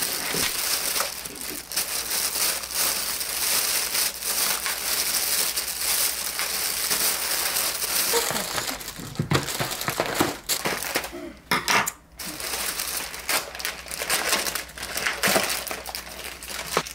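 Thin plastic carrier bag rustling and crinkling as it is opened and handled, then clicks and crackles of plastic takeout containers and lids being handled.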